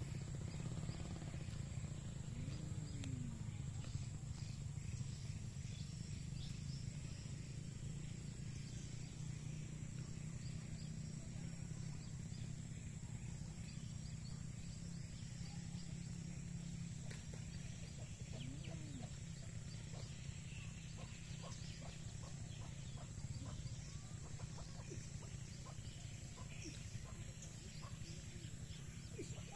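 Domestic chickens clucking faintly now and then, a couple of short calls standing out, over a steady low background hum.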